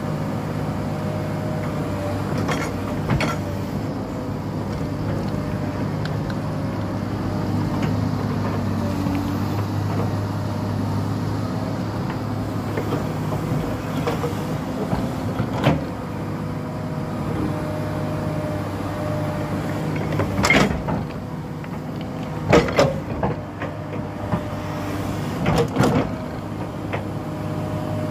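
Hydraulic crawler excavator's diesel engine running steadily under digging load, its note shifting up and down a few times as the hydraulics work. Sharp clanks and knocks of the bucket against soil and stones come now and then, most often in the last third.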